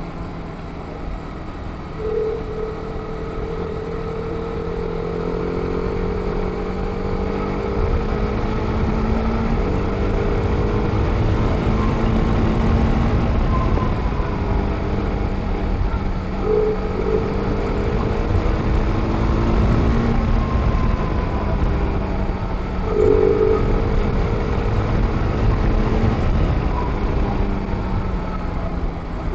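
TVS Apache RR 310's single-cylinder engine running under load on a ride, its pitch climbing slowly through long pulls with a few brief changes, over a heavy low wind rumble on the microphone.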